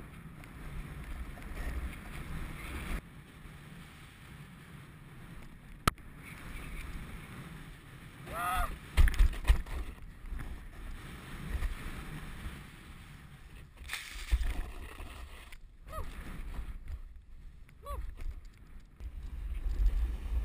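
Wind rushing over a helmet-mounted action camera's microphone, with the scrape and hiss of a snowboard sliding and carving over packed snow. The rumble swells and fades with speed, and there is a sharp click about six seconds in.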